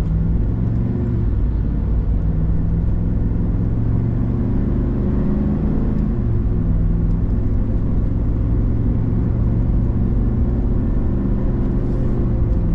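Ford Super Duty pickup carrying a truck camper, driving on the highway: a steady engine drone with road noise, its pitch shifting slightly about five seconds in.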